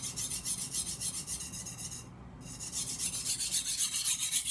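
A steel Global knife blade is stroked rapidly back and forth on a coarse 250-grit King water stone held in the hand, giving a fast, even, gritty rasping. There is a short break in the strokes about two seconds in.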